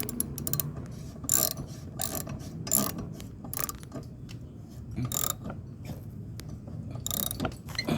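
Ratchet wrench clicking in short bursts with pauses, tightening the bolt that holds a new lawnmower blade.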